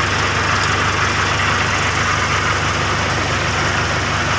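Heavy equipment engine idling steadily, an even low hum with a fine regular pulse and no change in speed.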